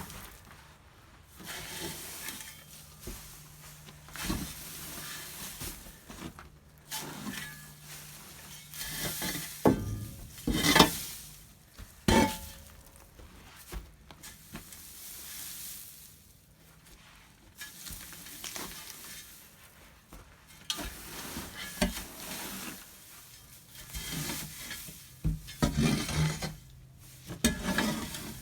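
Dry hay rustling and crunching in irregular bursts as it is shoved and pushed across the loft, with a few louder scrapes about ten to twelve seconds in.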